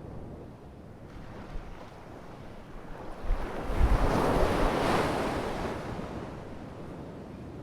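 Ocean surf, a steady wash of waves on the shore. About three seconds in, a wave breaks and swells to its loudest over the next two seconds, then washes out. Some wind buffets the microphone.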